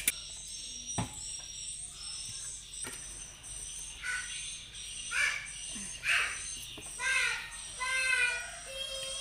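A metal spoon knocking and scraping pounded cassava leaves out of a plastic tub onto a steel tray, with a few sharp knocks in the first three seconds. From about four seconds in, repeated high-pitched calls in the background are the loudest sound, over a steady high whine.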